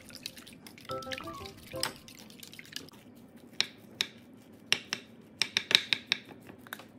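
Plastic rice paddle clicking and scraping against a glass baking dish while cooked rice is mixed with its seasoning for gimbap: a run of sharp, irregular taps in the second half. A few notes of light background music come before it.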